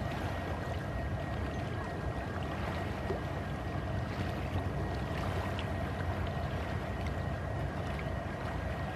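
Small waves lapping and splashing against shoreline rocks, with a steady low rumble underneath.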